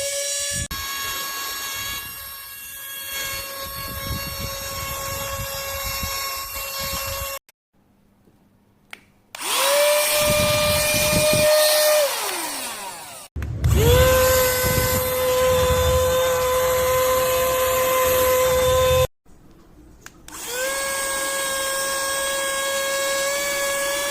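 Small cordless handheld vacuum-blower motor running with a steady high whine, switched on and off four times in runs of a few seconds each. After the second run it winds down, falling in pitch. The middle two runs are louder, with more low rumble.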